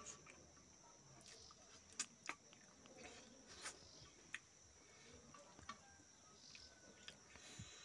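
Quiet eating by hand: soft chewing and a scattering of small sharp clicks from fingers picking rice and fish flakes off a steel plate.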